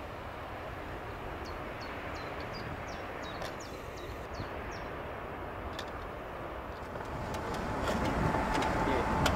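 Boeing 747 jet engines rumbling at a distance, growing louder with a steady whine from about seven seconds in, with a few short bird chirps partway through.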